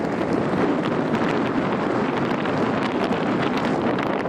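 Wind rushing and buffeting over the microphone of a camera in flight, steady throughout.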